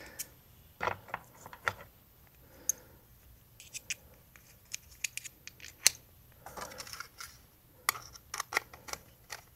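Irregular small clicks and light scraping from a driver bit and small brass threaded standoffs being handled and fitted, with a few short scratchy stretches among the clicks.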